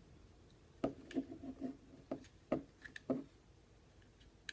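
Light, scattered clicks and taps of small pistol parts as trigger components are wiggled and fitted into the frame of a Smith & Wesson M&P Shield 9mm, about five in all.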